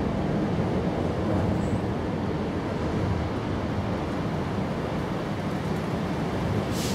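Steady low rumbling outdoor background noise, with a brief high hiss just before the end.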